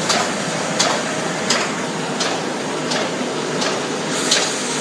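ZKT-700B window patching machine running, a sharp stroke repeating about every 0.7 seconds over a steady mechanical noise.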